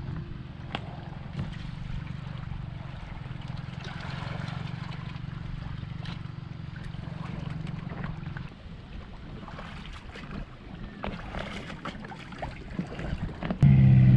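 A car engine idles low while a jet ski trailer is backed into the water, with water lapping and a few small knocks. Near the end a Sea-Doo Spark jet ski's engine starts abruptly and runs loudly.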